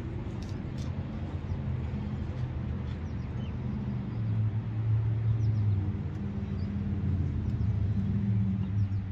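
An engine running steadily with a low hum, growing louder about four seconds in and again near the end.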